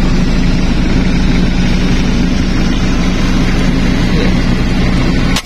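Vehicle engine idling steadily, heard from inside the cab. Near the end comes one sharp crack, the PCP air rifle being fired.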